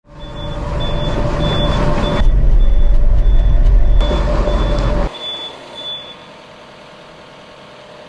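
Yanmar ViO55 mini excavator's 47-horsepower diesel engine running under hydraulic load, heard loud and close from the arm, with a warning alarm beeping a little under twice a second. The heavy rumble cuts off suddenly about five seconds in, and the beeping stops about a second later.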